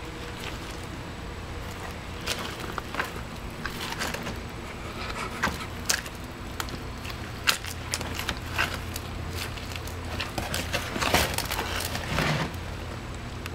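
Sneaker sole pressing and twisting in wet, gritty mud: irregular crackling and squishing with sharp crunches, busier and louder in the second half.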